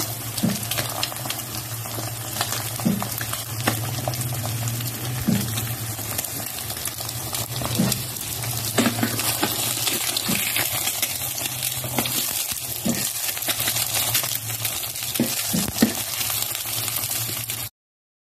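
An egg frying in a Dreepor electric cooker's non-stick pan: steady sizzling and crackling with frequent sharp pops, over a low steady hum. It cuts off abruptly near the end.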